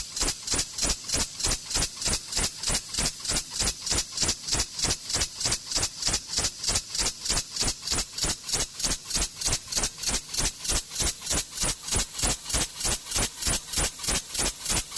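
A 6000 W fiber laser cutting machine cutting steel plate: a hiss that pulses evenly, about three times a second.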